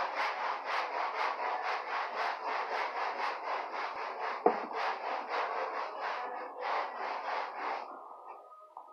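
Sandpaper rubbed by hand over dried wood putty on a wooden door, in quick back-and-forth strokes about three or four a second, to smooth the filled spots. One sharp knock comes about halfway through, and the strokes stop near the end.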